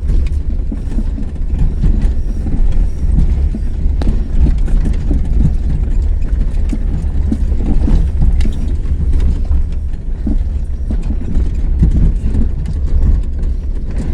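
Road noise of a moving car heard from inside the cabin: a loud, steady low rumble with frequent small knocks and rattles as it drives over an uneven road.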